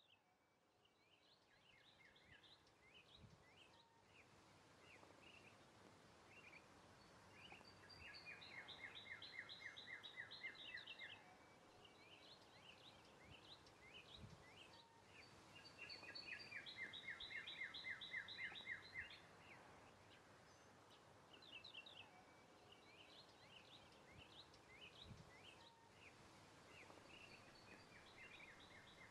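Faint songbirds singing: scattered short chirps, with two long rapid trills of about three seconds each, roughly a third and two-thirds of the way through.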